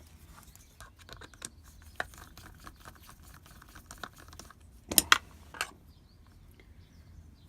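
Small scratching and clicking of a screwdriver working the retaining clip off the back of a lock, with a few sharp metallic clicks about five seconds in.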